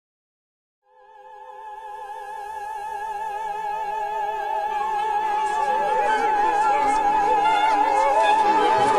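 Operatic singing on the soundtrack: a high voice enters about a second in, holding a long note with wide vibrato and swelling steadily louder. Lower voices join partway through.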